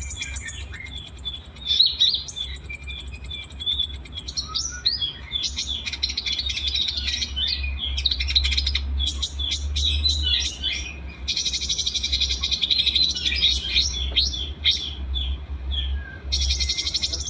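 Small songbirds singing in a mixed chorus: fast chirps, trills and high buzzy rattles overlapping one another, over a steady low hum.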